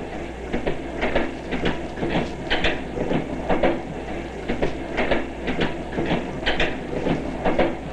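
Railroad car rolling on the track: a steady rumble with irregular sharp clicks about once or twice a second as the wheels pass over rail joints.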